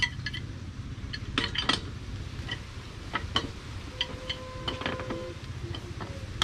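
Scattered light clinks and taps of hard objects being handled, a few a second at most, over a steady low rumble.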